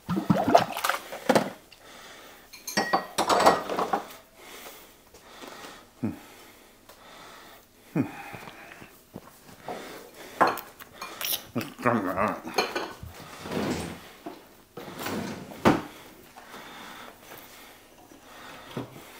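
Dishes and cutlery clattering: scattered knocks and clinks of plates, bowls and utensils being handled and set down.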